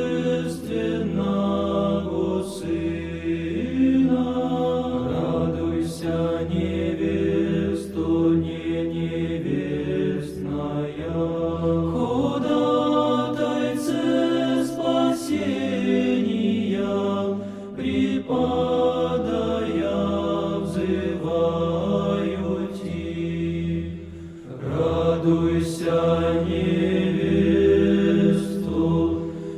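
Background music: a slow chant of low voices, holding long, sustained chords that change slowly.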